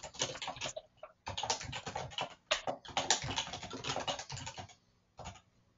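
Rapid typing on a computer keyboard: quick runs of keystrokes with a brief pause about a second in, stopping near the end after one last keystroke.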